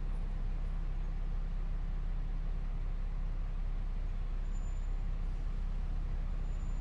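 City street traffic ambience heard from a second-floor window: a steady, low rumble of passing cars, buses and trucks.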